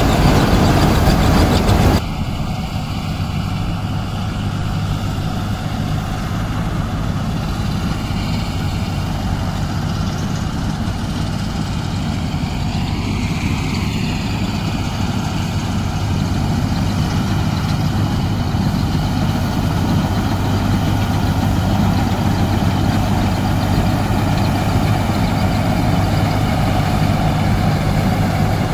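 Diesel engine of a John Deere 5310 tractor driving a mounted paddy harvester, running steadily under load. A louder, rougher machine noise in the first two seconds cuts off abruptly into a steady engine drone with a low hum, which grows slightly louder about halfway through.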